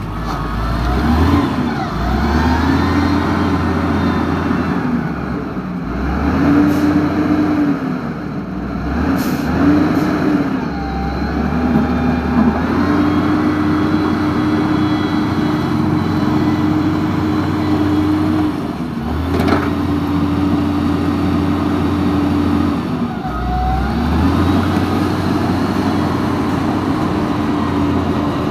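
Radio-controlled toy bulldozer running, with a steady engine-like rumble and a tone that rises and falls as it drives off, pushes gravel and stops. There are a few sharp clicks along the way.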